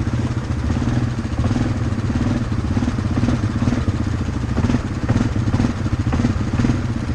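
Rented ATV's engine running steadily while under way, a low pulsing rumble, with scattered rattles and knocks from the machine.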